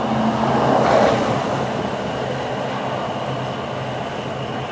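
Steady road noise with a low engine hum, as heard from inside a moving vehicle, swelling briefly about a second in.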